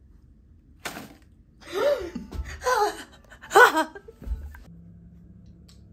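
A single knock about a second in, then three short, high-pitched laughing gasps from a person, the last one the loudest.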